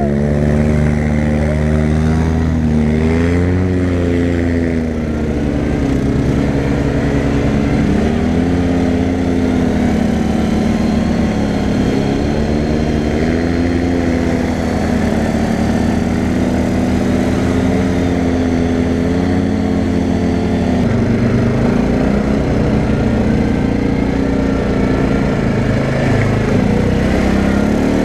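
CFMoto 500A ATV's single-cylinder engine running under the rider, its pitch repeatedly rising and falling as the throttle is opened and eased.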